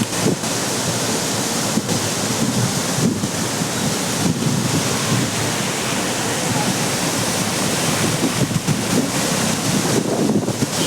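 Heavy floodwater from a rain-swollen streamlet rushing across a road, a loud, steady torrent. Wind buffets the microphone throughout.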